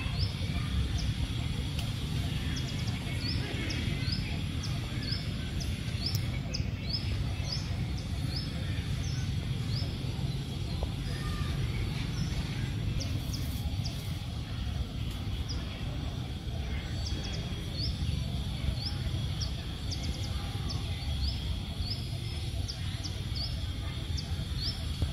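Small birds chirping: short, high, rising chirps that come irregularly, sometimes several a second, over a steady low rumble of outdoor background noise and a faint steady high tone.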